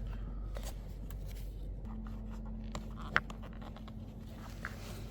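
Light scraping and handling of parts, with scattered small clicks and one sharper click about three seconds in, over a steady low hum.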